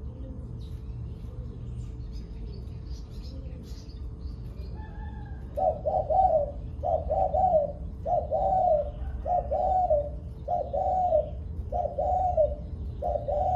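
Spotted dove cooing: after a few seconds of faint high chirps from small birds, a run of about eight coo phrases starts about halfway through, one every second or so, over a steady low hum.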